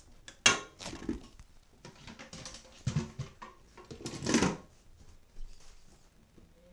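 Handling noise from a phone rubbing and knocking against clothing: irregular rustling and clattering, with a sharp knock about half a second in and a longer, louder rustle at about four seconds.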